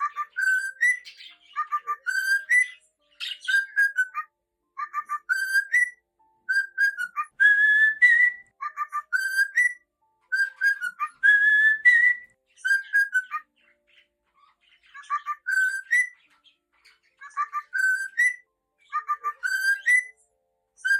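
Cockatiel whistling its song: short phrases of clear whistled notes, many sliding upward at the end, repeated with brief pauses between them. Twice near the middle a longer note carries a harsh, raspy edge.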